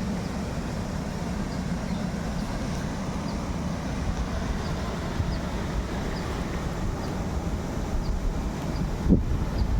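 Steady low rumbling noise, with faint light ticks repeating about twice a second. A single knock comes near the end.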